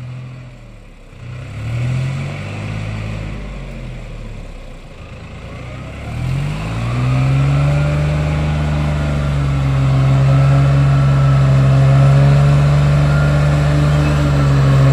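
Vehicle engine revving up and down, then about six seconds in climbing to high revs and holding there steadily under load, as a car stuck in mud is towed out on a rope.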